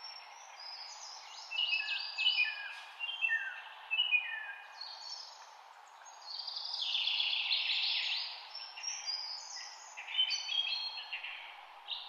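Several small birds chirping, with many short, high, falling notes overlapping in a busy chorus over a steady background hiss. The chorus swells to its fullest about two-thirds of the way in.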